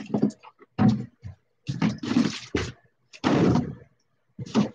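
Rummaging through kitchen cabinets: an irregular run of knocks, thuds and clatter as cabinet doors are opened and shut and things inside are moved about.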